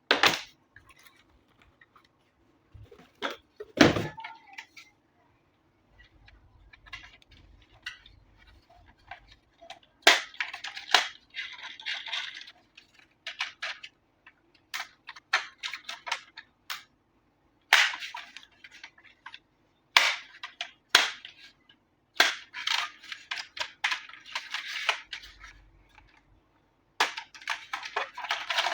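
Unboxing of a toy RC drift car: packaging rustling in bursts, with sharp clicks and knocks as the box, packing and toy are handled. The loudest knock comes about four seconds in.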